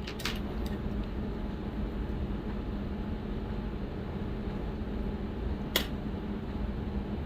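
Scissors snipping thin tea bag paper: a few small clicks just after the start and a sharper one near the end, over a steady low machine hum.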